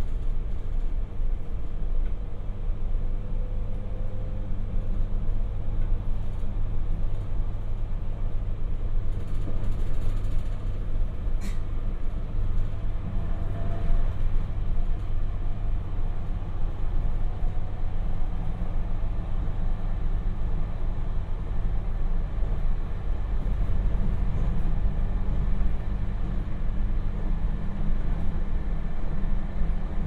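Running noise of a JR Hokkaido 721 series electric train heard from inside the passenger car: a steady low rumble of wheels and motors, with faint gliding motor tones and one sharp click about eleven seconds in.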